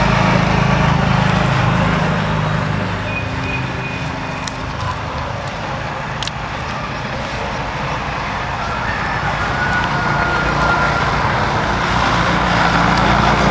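An engine running steadily under a loud noisy hiss, a little quieter in the middle and louder again near the end.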